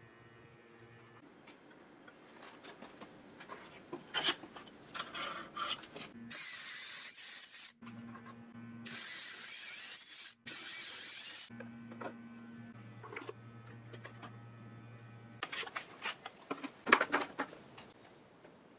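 Scattered clicks and knocks of parts being handled, then a power drill boring into the plastic-laminate Baltic birch table top in three runs of one to two seconds each, and a cluster of sharper clicks and knocks near the end.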